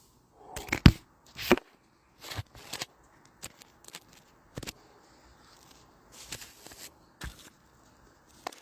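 Irregular knocks and clattering handling noises, with the two loudest sharp knocks about a second in and half a second later.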